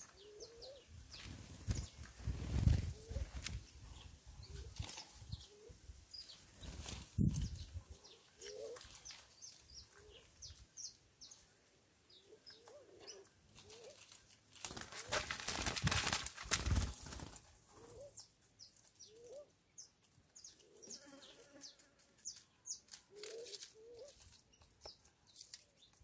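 Small birds at a seed feeder: scattered short high chirps and a run of brief lower calls, broken by a few louder rustling bursts, the longest about fifteen to seventeen seconds in.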